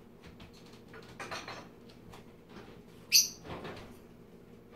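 Kitchen cooking sounds: light knocks and rustles of utensils and cookware being handled, with one short, sharp, high-pitched squeak about three seconds in.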